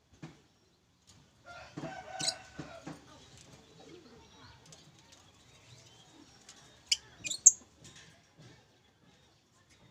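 A pet lovebird flapping its wings, heard as a rustling flurry about two seconds in, followed near the end by a few short, shrill chirps.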